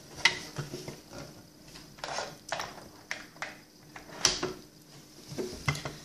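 Hard plastic pieces of a Shopkins toy refrigerator playset clicking and knocking as they are handled and moved into place: about ten scattered light taps, the sharpest a little over four seconds in.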